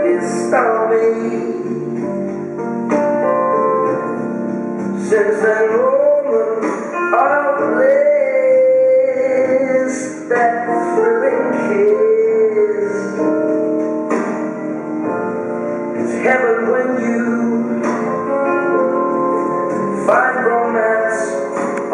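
A song: a voice singing a slow, gliding melody over piano accompaniment.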